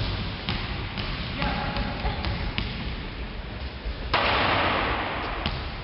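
Basketball dribbled and bouncing on a wooden gym floor: a few sharp thumps spread through. About four seconds in comes a loud rush of noise that lasts about a second.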